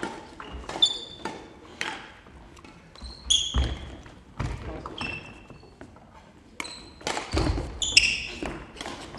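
Badminton play: a string of sharp hits at irregular intervals, from rackets striking the shuttlecock and feet landing on the court, mixed with short high squeaks of shoes on the hall floor.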